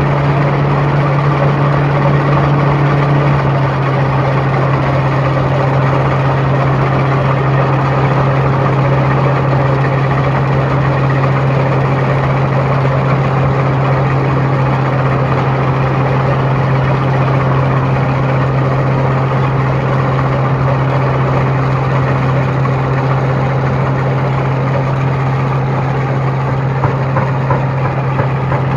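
Rice harvesting machine's engine running steadily at a constant speed with an even, low hum.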